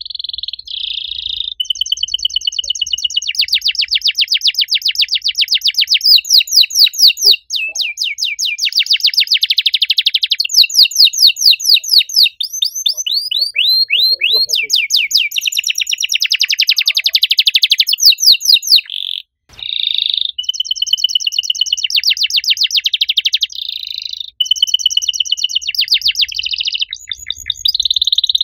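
Domestic canary singing a long, loud, shrill song of fast trills and rolling phrases that change from one to the next, with one short pause about two-thirds of the way through.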